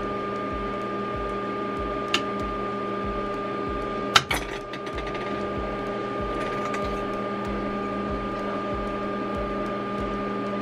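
Steady machine hum with a low throb about twice a second from the powered-on Glowforge Pro laser cutter. There is a light click about two seconds in, then a sharper click with a short ring about four seconds in, as the orange clip inside the machine is pushed down and pops up.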